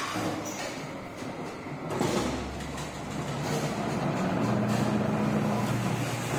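A metal-forming press in a brass workshop runs with a steady machine hum. About two seconds in there is a sudden knock with a low rumble. From about four seconds a stronger, steady low hum sets in as the ram comes down to press a brass plate in the die.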